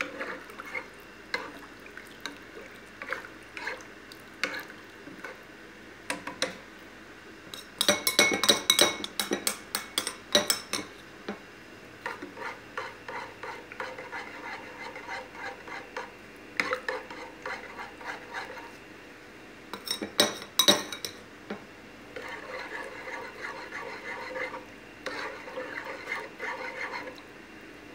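Metal spoon stirring a thick creamy mushroom sauce in an enamel pot, scraping and clinking against the pot, with two runs of rapid knocks about eight seconds in and again around twenty seconds in.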